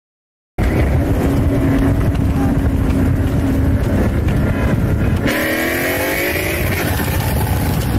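Car engines and heavy road rumble from a street race, starting abruptly about half a second in. About five seconds in, an engine revs up, its pitch rising.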